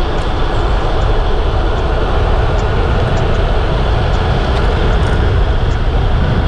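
Steady, loud rumble of wind and road noise on a camera microphone riding along on a moving bicycle.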